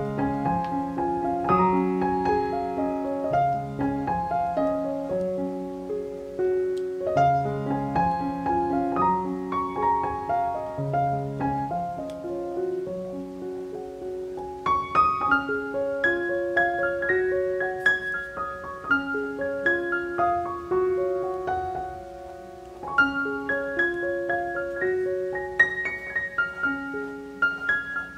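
Piano background music: a melody of held notes that changes every fraction of a second.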